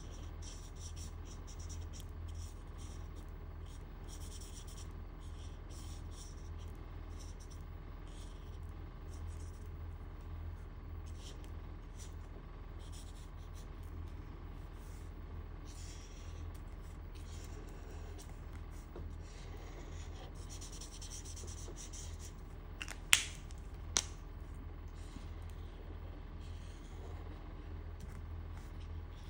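Alcohol marker tips scratching across drawing paper in short, repeated strokes while shading, over a low steady hum. Two sharp clicks come about three-quarters of the way through.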